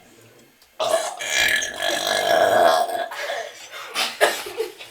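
A young girl's long, loud burp, drawn out for over two seconds, followed by two short sounds near the end.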